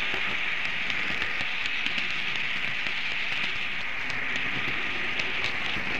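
Märklin model train running along its track, heard from a camera riding on it: a steady rattling hiss with faint scattered ticks.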